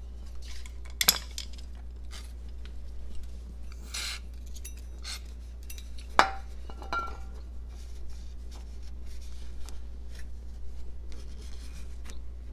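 Brake cleaner and a shop rag used on a transmission's rear housing: a sharp metallic clink about a second in, a short spray hiss about four seconds in, and a second clink with a brief ring about six seconds in. After that, the rag rubs and wipes around the housing.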